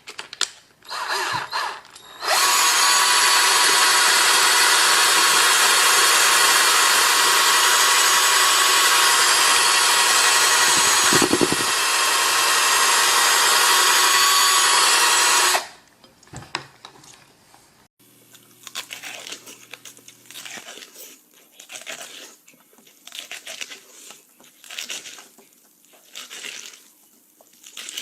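Electric power drill spinning a corncob, running at one steady speed with a whine for about thirteen seconds, then stopping abruptly. Quieter, irregular sounds follow.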